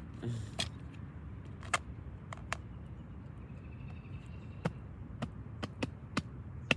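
Irregular sharp taps or clicks, one or two a second and coming faster in the second half, over a steady low rumble.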